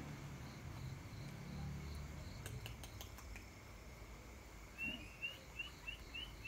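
Faint chirping of a small animal: about five seconds in, a run of short, rising chirps starts, roughly three a second. A fainter repeating chirp sits behind it.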